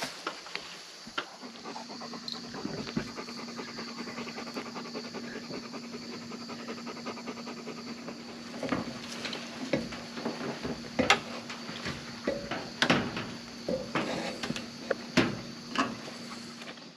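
Dog panting rapidly close to the microphone, with louder, sharper breaths now and then in the second half.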